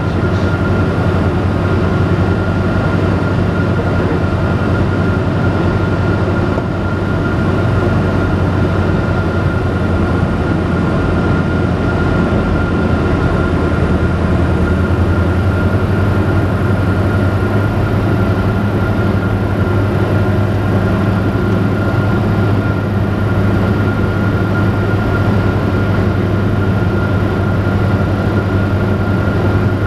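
Robin DR400 single piston engine and propeller droning steadily, heard inside the cockpit, with a thin steady whine above it. The level dips slightly about seven seconds in.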